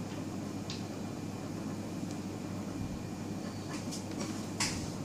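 Steady low background hum, with a faint soft click about a second in and a short hiss of handling noise near the end, as sticky slime is handled.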